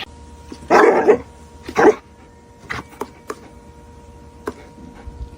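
A dog barking twice, loud, about a second in, followed by a few short sharp sounds over a faint steady hum.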